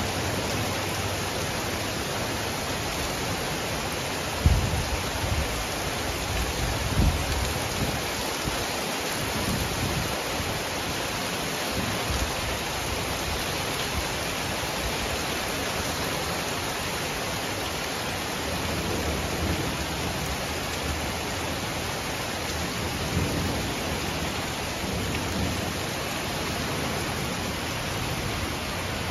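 Heavy rain falling steadily in a thunderstorm, with deep rumbles of thunder about four and seven seconds in, the first the loudest.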